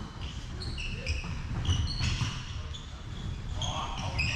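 Players' shoes squeaking on a wooden sports-hall floor during a volleyball rally: many short, high squeaks. There is a knock of a ball hit right at the start.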